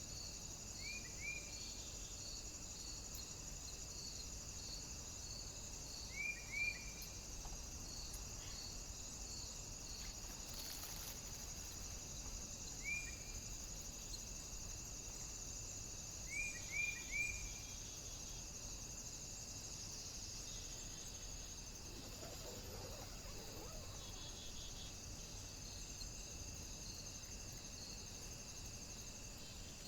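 Insects such as crickets keep up a steady high trill, with a pulsing chirp about twice a second, over a faint hiss. Short high chirps come a few times in twos and threes and are the loudest sounds.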